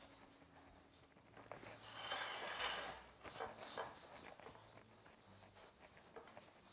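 Faint rustle and soft pats of a crumbly oat mixture being pressed by hand into a glass baking dish, loudest about two seconds in.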